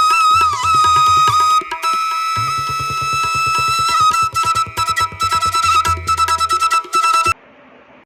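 Background music: a sustained flute melody over fast tabla-style drumming, stopping abruptly near the end.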